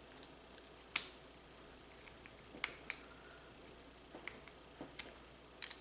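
Scattered light clicks and taps of a screwdriver and a plastic electrical plug being handled while the plug's cord clamp screws are tightened a bit at a time, the sharpest click about a second in.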